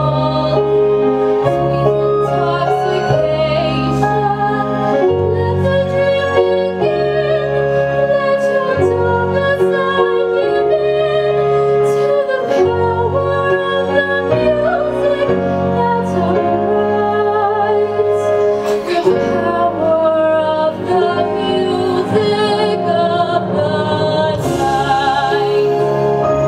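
A woman singing solo into a microphone with vibrato, over an instrumental accompaniment of held low notes.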